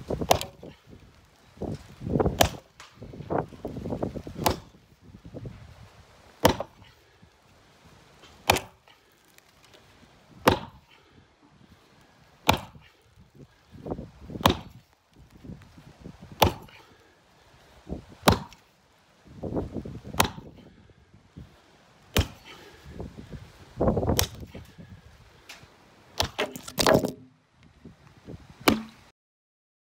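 Axe blows chopping into an old timber beam lying on the ground, a sharp chop about every two seconds as the wood splits. The strokes stop shortly before the end.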